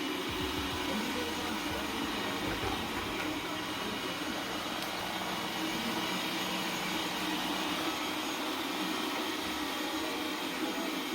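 Everybot 3i robot cleaner running with a steady, even whir from its motors.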